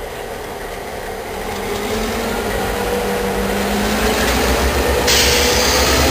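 Diesel locomotive running as it approaches, its engine drone and low rumble growing louder. A sudden loud hiss sets in about five seconds in as it draws close.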